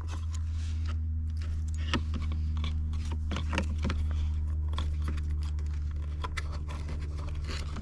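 Small clicks and scrapes of a plastic wiring connector being handled and pushed toward its socket on the security gateway module, over a steady low hum.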